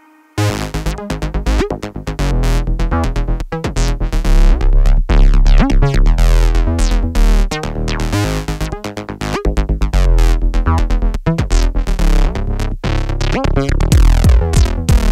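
Electronic music with a drum machine beat, synthesizer and heavy bass, kicking in abruptly about half a second in.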